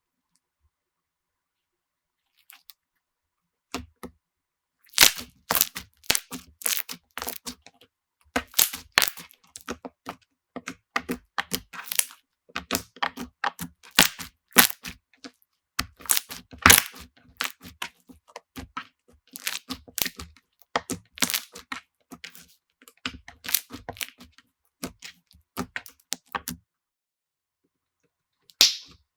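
Slime being squeezed and pressed by hand, making dense crackling, clicking pops. It starts about four seconds in and pauses briefly near the end.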